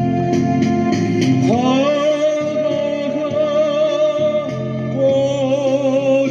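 A singer holding long sustained notes with vibrato over steady keyboard accompaniment: one note rises in about a second and a half in, and a new held note starts about five seconds in.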